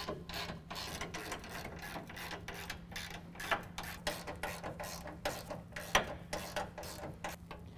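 Hand ratchet with a 19 mm socket clicking in quick, uneven runs as nuts are tightened down on a steel bumper bracket, with a couple of louder metal knocks partway through.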